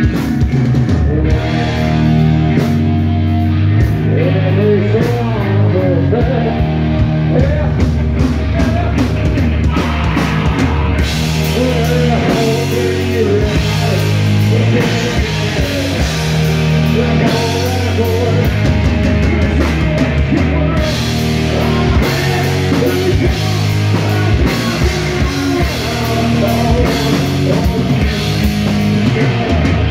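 Live rock band playing loud: electric guitars, bass guitar and drum kit, with a male singer's vocal over them.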